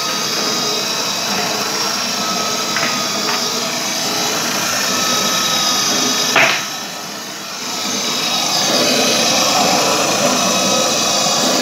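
Small 12-volt DC gear motor running on direct power, driving a toothed timing belt over CNC-style pulleys with a spring-loaded bearing tensioner: a steady mechanical whir. There is a sharp click about six seconds in, and then the sound runs quieter for a second or so before it picks back up.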